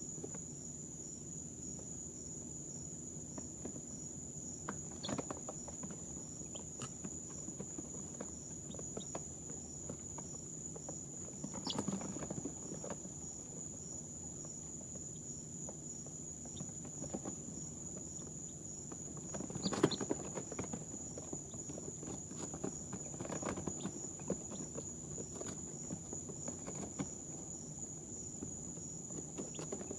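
Baby chicks shuffling and scratching in their brooder, a few soft rustles and taps, the clearest about twelve and twenty seconds in, over a steady high-pitched whine and a low hum.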